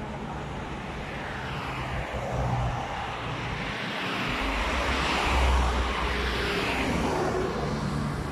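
Road traffic on a multi-lane highway: tyre and engine noise of passing cars and vans, swelling as a vehicle passes close and loudest about five seconds in.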